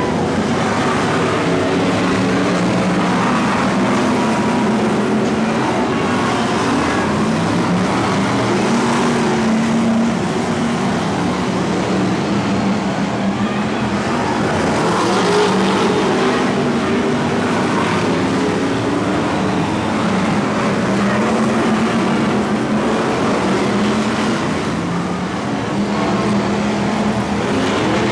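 Several BriSCA F1 stock cars' V8 engines racing on a shale oval, a continuous loud engine noise whose pitch rises and falls as the cars lift off and accelerate through the bends and pass close by.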